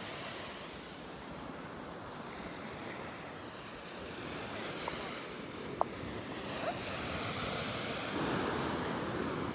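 Small waves breaking and washing onto a sandy beach, with some wind. The wash swells louder about eight seconds in.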